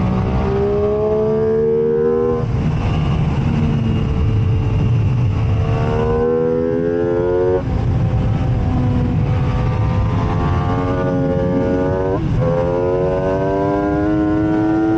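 MV Agusta F3 inline three-cylinder sport-bike engine at full throttle on track, its revs climbing and then dropping sharply at each gearchange, about two, six, seven and a half and twelve seconds in, over steady rushing noise.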